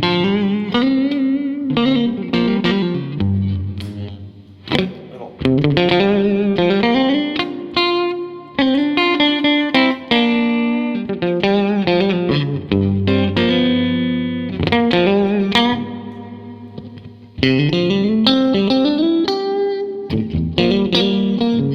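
Electric guitar, a Fender Stratocaster, played through a 1959 Fender 5F6-A Bassman tube amp. It plays phrases of single notes with string bends and chords, with short breaks about four and sixteen seconds in.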